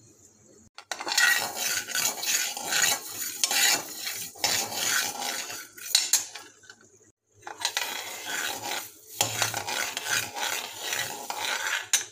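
Steel ladle stirring dry coriander seeds being dry-roasted in a pan: a dense scraping rattle of seeds and metal against the pan. It comes in two spells, with a brief pause about seven seconds in.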